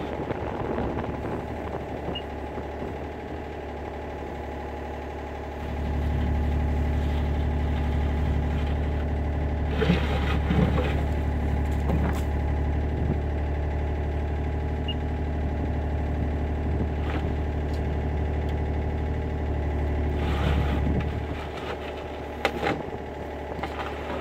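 Yanmar B37 mini excavator's diesel engine running while the arm moves. The engine gets louder about six seconds in, holds there until about twenty-one seconds, then drops back. A few short knocks come from the working arm.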